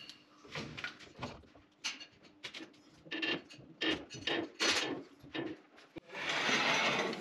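Hydraulic floor jack being pumped by its handle to lift a heavy cutting table: a series of short clacks and creaks, about two a second. About six seconds in, a steady rasping noise takes over.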